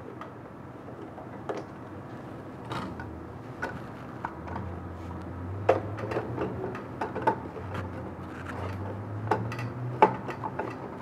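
Empty cardboard core tube being handled and seated onto the metal shafts and end holders of a DTF printer's film take-up roller: a string of irregular light knocks and clicks. A low hum comes in around the middle and fades out before the end.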